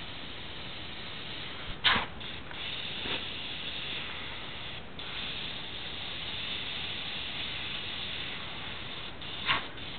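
Airbrush spraying paint onto a T-shirt: a steady hiss of air, cutting out briefly now and then as the trigger is let go. Two short, louder bursts break in, about two seconds in and again near the end.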